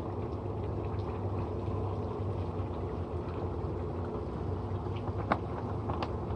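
Hydrochloric acid fizzing and bubbling as it reacts with heavy calcium scale inside a pool salt-cell chlorine generator, over a steady low hum, with two small clicks near the end.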